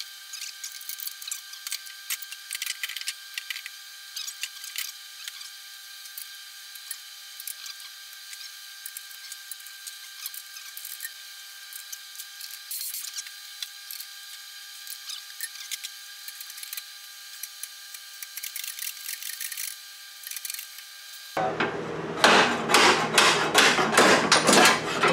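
Rapid clicking and clatter of hand tools on rear suspension parts during a coilover swap, thin and high-pitched over a faint steady tone. A little before the end it turns louder and fuller, with sharp metal clanks.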